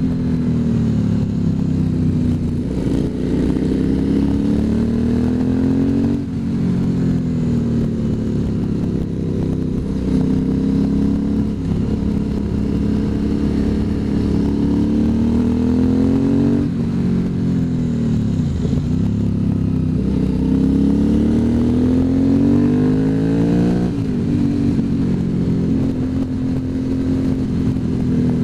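Motorcycle engine heard from on board while riding, its pitch climbing slowly under acceleration and then dropping sharply at gear changes, about three times, with steady road and wind noise underneath.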